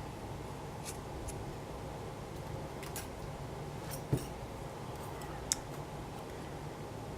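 Light, sharp clicks and taps of small lock parts and picking tools being handled while a pin-tumbler lock is taken apart, scattered irregularly, with the loudest about four and five and a half seconds in, over a steady low hum.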